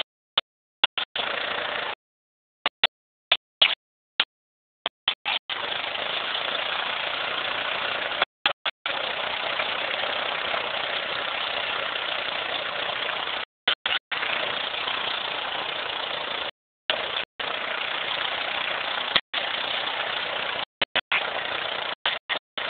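Quad (ATV) engine running as it drives along a trail, a rough steady noise with no clear pitch. The sound cuts out to dead silence several times, about a second in and again in the second half.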